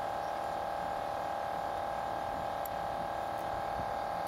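A steady hum: one unchanging tone with a few fainter overtones above it.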